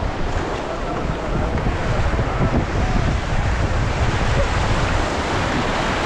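Steady rush of whitewater as an inflatable raft runs a river rapid, with heavy wind buffeting the microphone.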